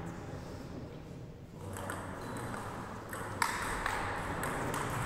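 Table tennis ball being struck back and forth in a doubles rally, ticking off bats and the table. After a quieter start, a run of sharp clicks begins nearly two seconds in.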